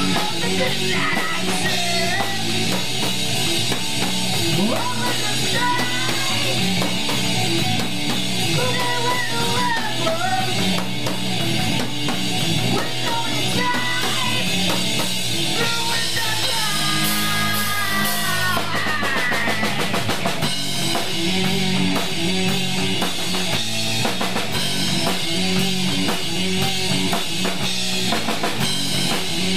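Rock band playing live through a small venue's PA: drum kit and electric bass under an electric guitar lead with bent notes, and a quick flurry of gliding notes about two-thirds of the way through.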